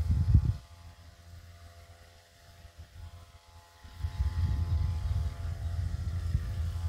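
Low rumble of wind buffeting the microphone in gusts, dropping away about half a second in and returning around four seconds, over the faint steady hum of an engine running at an even speed.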